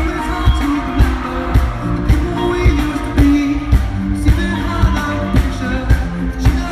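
Live pop-rock band music: drums hitting a steady beat about twice a second over bass and sustained chords.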